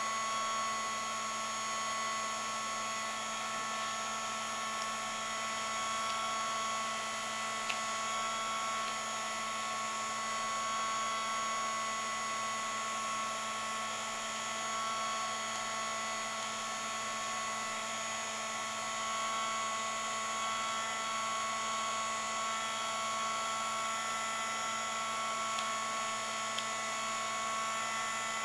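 Craft heat tool running continuously, a steady motor whine with a constant high hum, blowing hot air onto cardstock petals to curl them.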